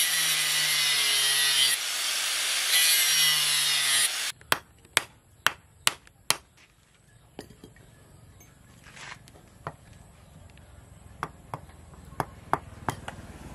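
Angle grinder with its disc cutting into a wooden knife handle, running loudly for about four seconds and easing briefly about halfway, then stopping. A run of sharp taps follows, about two a second, then scattered lighter clicks.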